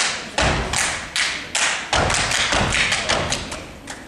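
A step team stepping: foot stomps and hand claps struck in a quick rhythm, about three a second, with heavier stomps at the start and about two seconds in.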